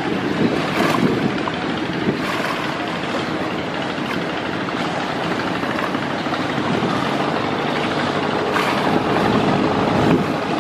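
Passenger river launch under way: its engine runs with a steady rumble under a constant rushing noise.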